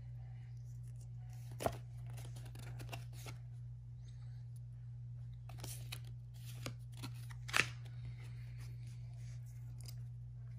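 Crinkling of a Pokémon booster pack's foil wrapper and trading cards being handled, in scattered sharp crackles, the loudest about one and a half seconds in and again about seven and a half seconds in. A steady low hum runs underneath.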